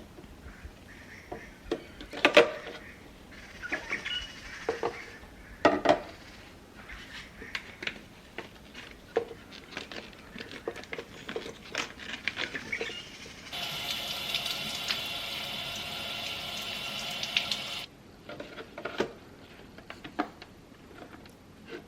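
Kitchen containers, jars and dishes knocking and clicking against each other and the shelves as they are handled and set down, irregularly throughout. About two-thirds of the way through, a steady hiss runs for about four seconds and then cuts off.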